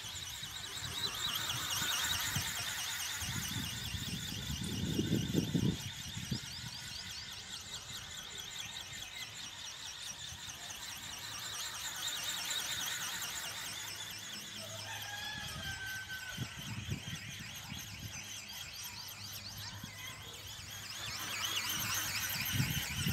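High, wavering whine of an RC ornithopter's small electric drive as the flapping-wing bird drone circles overhead, swelling and fading as it passes. A low rumble comes about five seconds in and again at the end.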